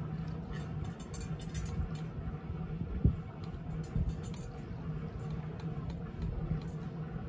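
A cat crunching dry kibble from a metal dish, with clusters of small clicks and clinks as it eats and a dull thump about three seconds in, over a steady low hum.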